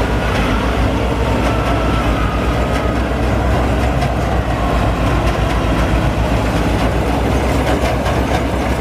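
Combine harvester running steadily while harvesting rice: a loud, continuous engine drone with machinery noise that holds level throughout.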